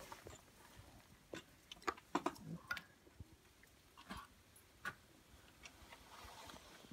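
Faint, irregular clicks and knocks, about a dozen spread unevenly over several seconds, with a quiet outdoor hiss between them.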